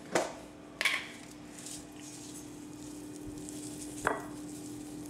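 Two sharp clicks as a breadcrumb container is opened, then dry breadcrumbs pour into a ceramic bowl with a faint hiss, and another sharp knock about four seconds in. A steady low hum runs underneath.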